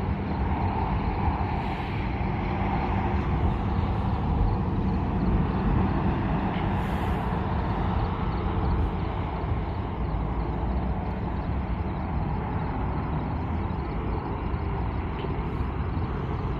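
Steady rumble of road traffic passing.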